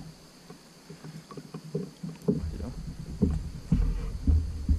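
A small jundiá catfish is brought to the surface beside a kayak and lifted out of the water: scattered light splashes and clicks, then a low rumble with several sharp knocks from about two seconds in.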